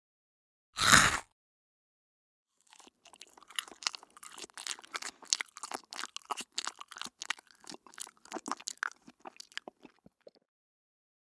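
A person takes one loud, crunchy bite of crisp food, then chews it with fast crackling crunches for about seven seconds that thin out toward the end.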